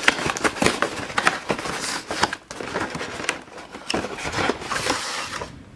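Cardboard collection box with a plastic window being handled close to the microphone: a run of crackles, rustles and small clicks.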